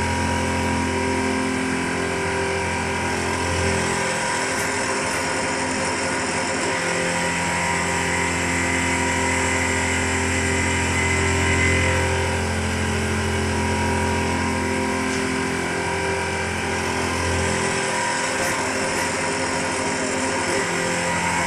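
CNC turn-mill machine running, its driven tool holder spinning an end mill against a workpiece held in the chuck: a steady machine hum with several steady tones. The low hum drops out briefly twice, about 4 seconds in and again near 17 seconds.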